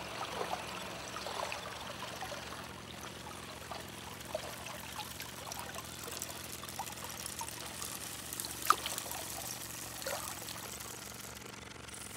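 Water trickling and dripping, with many small scattered drips and one sharp click about three-quarters of the way through.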